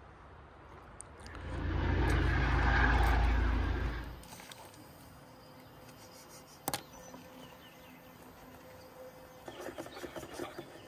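A vehicle passing, rising to its loudest and fading away over about three seconds. Near the end, a spoon ticks quickly against the inside of an insulated cup as a drink is stirred.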